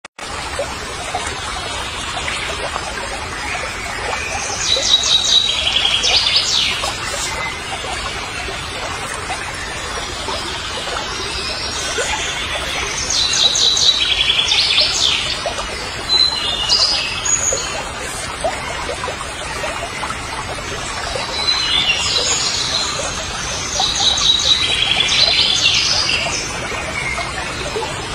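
A songbird singing fast, high chirping phrases in three bouts, each a few seconds long and about nine seconds apart, over a steady background hiss.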